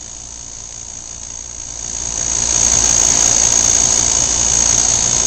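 Water splashing and churning in an inflatable above-ground pool as several children drop into it together, a wash of noise that builds about two seconds in and then stays steady.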